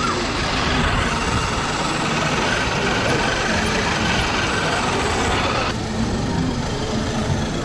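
Steady rumbling noise of RC crawler trucks driving over asphalt close to a road-level microphone. The higher part of the noise drops away abruptly about six seconds in.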